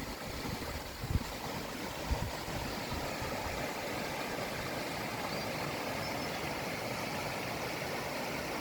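Steady rushing of a mountain valley stream. A few short low thumps come in the first two seconds, and the rushing grows a little fuller and steadier after about three seconds.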